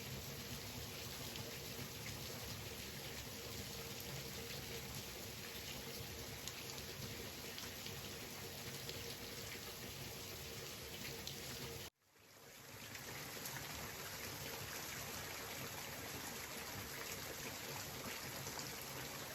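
Cooking oil sizzling and crackling steadily as rice paper seaweed chips deep-fry. The sizzle cuts out abruptly about two-thirds of the way through, then fades back in.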